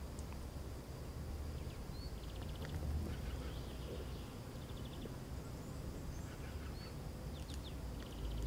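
Outdoor ambience: scattered short bird chirps, a few rising in pitch, and two brief buzzy rattles about two and five seconds in, over a steady low rumble.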